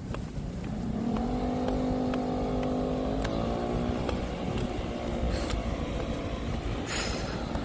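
A motor vehicle passing on the road: its engine note comes up about a second in, holds steady, then shifts in pitch and fades by about four seconds in, over a constant low traffic rumble.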